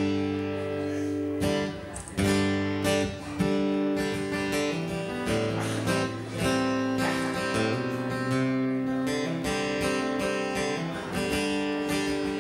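A solo acoustic guitar strumming held chords that change every second or two: the instrumental intro before the vocals come in.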